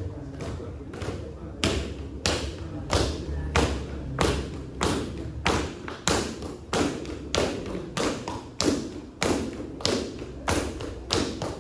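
Several dancers stamping bare feet on a wooden stage floor in unison, in a steady beat of a little under two stamps a second.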